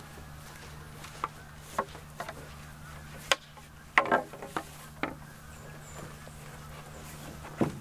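Footsteps through dry grass, with scattered knocks and clunks from a person carrying a canoe overturned on the shoulders, over a steady low hum. The knocks come irregularly, most of them about four seconds in.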